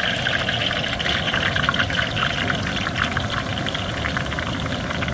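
Besan sev strands frying in hot oil in an iron kadhai: a steady sizzle full of fine crackling, over a low steady rumble.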